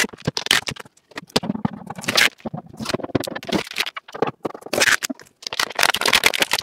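Packing tape and plastic protective film being peeled and pulled off by hand, in a run of irregular crinkles, scrapes and crackles.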